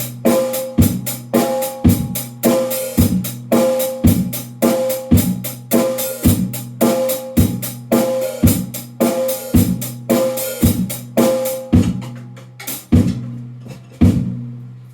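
A drum kit played in a steady groove of about two hits a second. The drums ring with a clear pitch after each stroke. The playing stops near the end with one last hit that rings out and fades.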